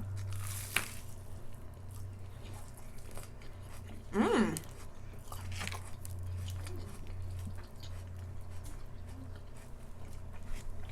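Close-up biting and chewing of a fried homemade onion ring, with a crunch on the first bite and wet chewing after. About four seconds in comes a brief hummed "mm" from the eater, over a steady low electrical hum.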